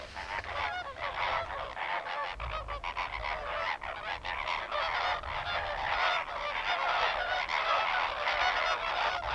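A flock of greater flamingos calling all together in a dense, unbroken chorus of goose-like honks, as they crowd together in their group courtship display.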